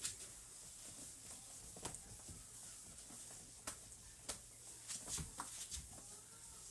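Damp microfibre towel wiping a stainless steel fridge door: faint rubbing with scattered sharp clicks and light knocks, a cluster of them about five seconds in.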